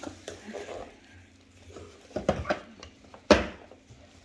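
Knocks and clatter of an AEG VX4 canister vacuum cleaner's plastic body being shifted and handled, with the motor off. A few quick knocks come about two seconds in, then a single sharp knock, the loudest, a little after three seconds.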